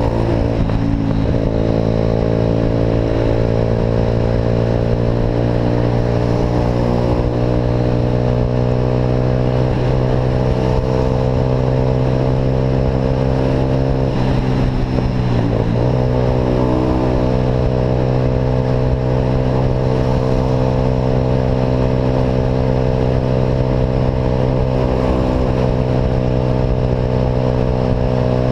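Motorcycle engine running through an aftermarket Atalla exhaust while riding at a steady pace. Its note holds steady and dips briefly before picking back up twice, about a second in and about halfway through.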